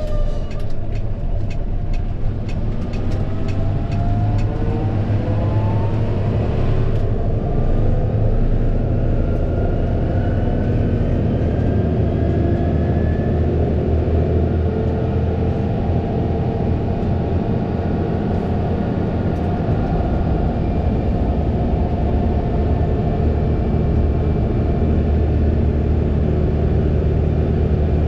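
Fendt 936 Vario tractor running with a steady, deep engine drone, and a whine that rises in pitch over the first several seconds as it picks up speed.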